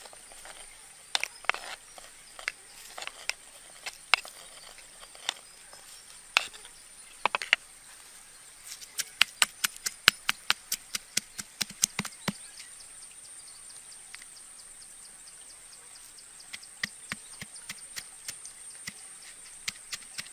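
Stone pestle pounding chillies and garlic in a stone mortar: sharp, separate knocks, scattered at first, then a quick run of about three strikes a second partway through. The knocking stops for a few seconds, then starts again near the end.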